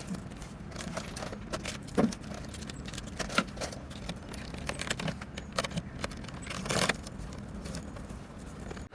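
Irregular crinkling and sharp clicks of aluminium foil tape being handled and pressed down over the joints of foil-faced insulation, with a faint steady hum underneath.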